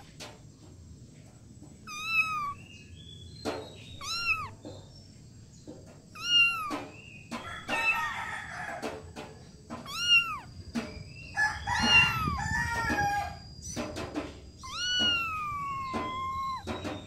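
Kittens mewing: a series of short, high-pitched mews, each rising then falling, about every two seconds, with one longer drawn-out mew near the end.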